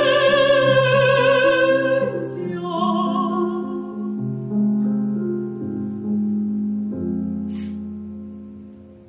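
Operatic soprano holds a high note with wide vibrato, releasing it about two seconds in, then sings a short final phrase. A grand piano plays the closing chords alone, fading away near the end.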